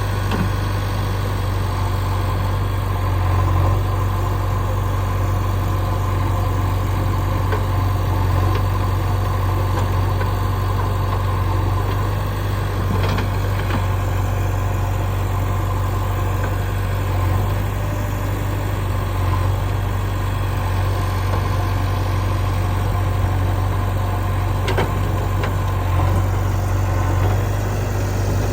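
Heavy diesel machinery engine running steadily near idle with a deep, even hum, and a couple of faint knocks.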